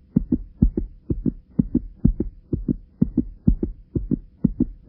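A rapid, regular run of short low thuds falling roughly in pairs, like a heartbeat, over a faint steady hum. It is an edited-in sound effect that starts and stops abruptly with dead silence on either side.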